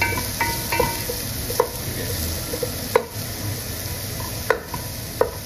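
Chopped onion, garlic, ginger and chilies sizzling in oil in a stainless steel pot while a wooden spoon stirs them, scraping with short ringing notes near the start and knocking sharply against the pot about four times.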